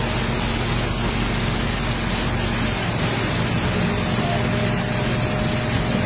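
Hydraulic excavator's diesel engine running at a steady pitch, heard from the cab, over the rushing of floodwater.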